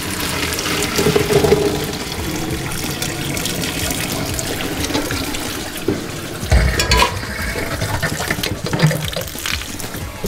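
Hot cooking water pouring from a pot into a colander in a stainless-steel sink, draining boiled carrots and potatoes, with a knock about six and a half seconds in.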